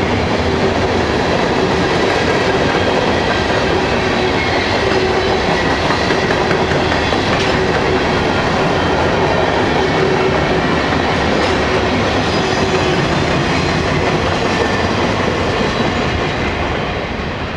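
Freight train cars rolling past at close range: steel wheels running on the rails in a steady, loud rumble. The noise begins to ease near the end as the last car goes by.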